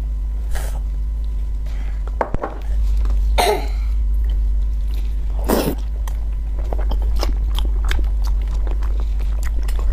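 Close-up wet chewing and mouth clicks of someone eating sauce-coated braised pig skin rolls, with squelchy handling of the sticky skin; the loudest squelch comes about halfway through. A steady low hum runs underneath.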